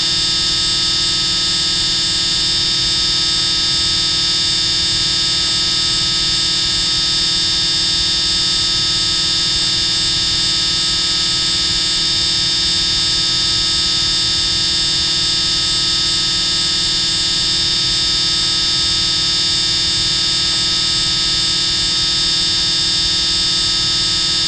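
Extremely loud, harsh buzzing: one steady, unchanging buzz with a strong high-pitched edge.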